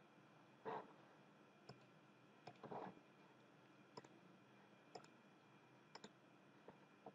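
Faint computer mouse clicks, about one a second, as buttons in a software dialog are clicked through, over quiet room tone.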